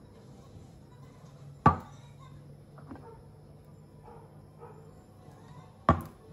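Two metal food cans set down on a stone countertop, about four seconds apart, each a sharp knock with a short ring; a few faint small knocks between.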